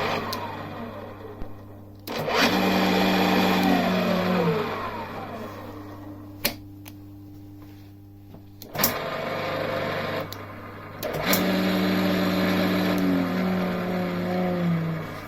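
Arboga Maskiner pillar drill's electric motor switched on, running steadily for a couple of seconds, then switched off and spinning down with falling tones. This happens twice, with a couple of sharp clicks between the runs.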